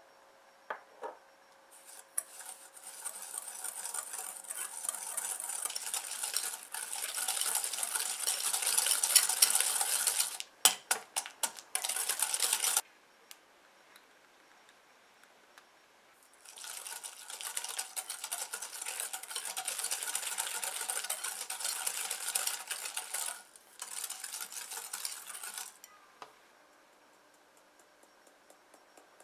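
Wire balloon whisk beating softened butter and sugar in a glass bowl, a scraping, rattling sound that grows louder over about ten seconds and ends in a quick run of sharp clicks. After a pause of a few seconds the whisking starts again for about nine seconds, now working egg yolk into the creamed butter.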